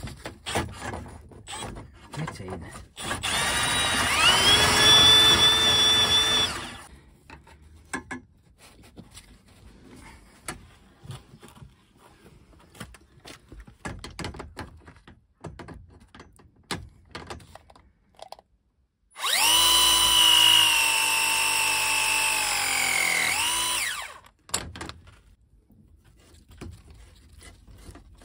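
A power drill runs twice, about three and a half seconds and then about five seconds, at a steady whine, the first run spinning up with a rising pitch, each stopping abruptly. Light clicks and knocks of tool and pipe handling come between the runs.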